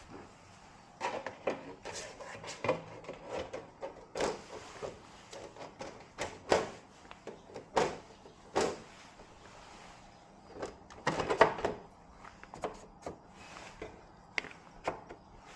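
Irregular clicks and knocks of objects being handled, a dozen or so scattered through, with a denser cluster about eleven seconds in.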